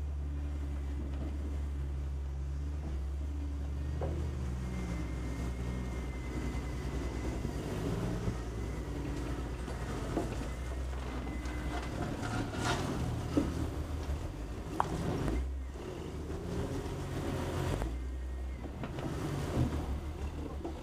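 Jeep engine running at a steady low crawl on a rocky trail, easing off briefly about three-quarters of the way through, with scattered knocks and clunks from the vehicle working over rocks.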